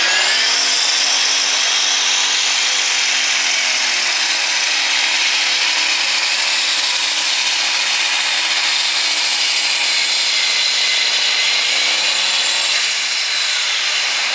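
Light super class pulling tractor's engine screaming at full throttle under load as it drags the sled down the track. The revs sweep up at the launch, hold high, sag a little past the middle and climb again near the end.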